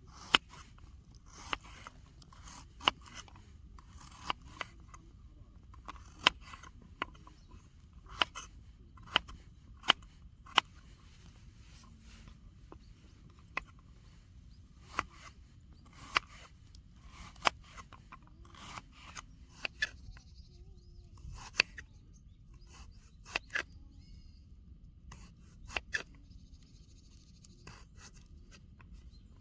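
A series of sharp, short clicks or snips, spaced irregularly about once a second, over a faint steady background.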